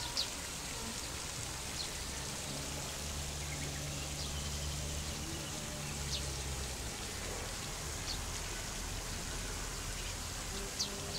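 Steady hiss of rain falling, under soft background music with long low held notes, and a few short high ticks scattered through.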